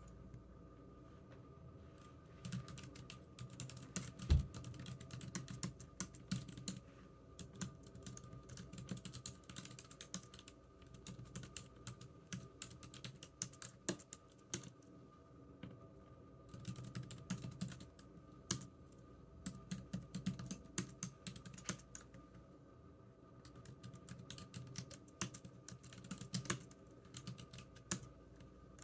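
Typing on a computer keyboard, in runs of quick key clicks broken by short pauses, with one heavier knock about four seconds in.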